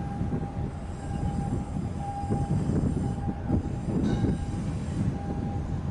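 Deep, uneven rumble of a large container ship's engines and machinery as the ship passes close, with a faint steady whine over it.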